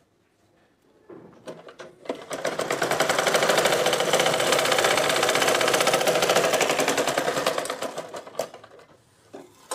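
Domestic sewing machine stitching a seam: it starts about two seconds in, runs at a fast, even stitch for about six seconds, and slows to a stop. Cloth being rustled and handled before and after.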